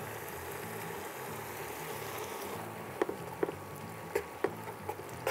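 Steady sizzling from a frying pan of spaghetti in hot garlic olive oil as lemon juice goes in; from about three seconds in, metal tongs click and scrape against the pan as the pasta is tossed.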